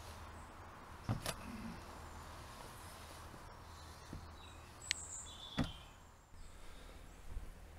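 A few scattered knocks, a pair just after a second in and two more near the middle, as a man gets up from a wooden bench and moves on wooden boards, over a faint outdoor background with a few short high chirps.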